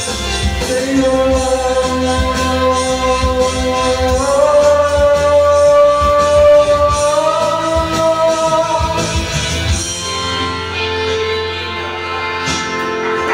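A man singing long held notes into a microphone over backing music with a steady bass. The sung line steps up in pitch twice, and the music winds down about ten seconds in as the song ends.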